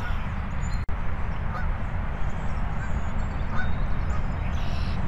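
Wind buffeting the microphone in a steady low rumble, with geese honking faintly a few times.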